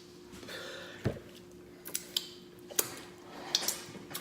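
Mouth smacking while chewing food, a series of short wet smacks at irregular intervals, about seven in all.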